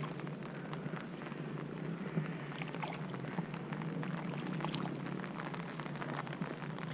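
Steady patter of rain falling on the water, a continuous hiss dotted with fine ticks of drops.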